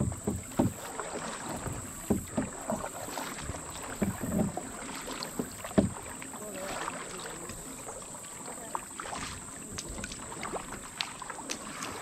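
Canoe paddles dipping and pulling through calm river water beside an aluminum canoe: irregular splashes and drips, with a few sharper strokes in the first six seconds.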